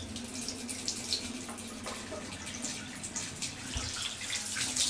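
Water running steadily from a bath mixer tap's spout and splashing into the bath near the plughole, the hot side opened to check that water flows through the hot system again.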